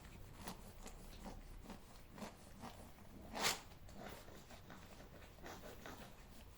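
Cats licking and eating a treat at close range: soft irregular smacking clicks, two or three a second, with one louder rustle about three and a half seconds in.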